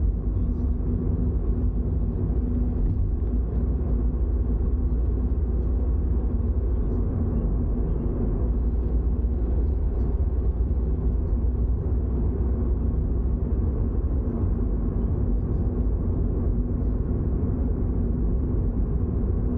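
Toyota GR86 with its flat-four engine under way at a steady pace: an even, low rumble of engine and road noise with a faint steady hum, not changing in pitch or level.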